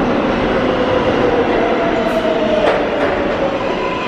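R188 subway train pulling into the station: a loud steady rumble with a whine that slowly falls in pitch, and a few sharp wheel clacks about two to three seconds in.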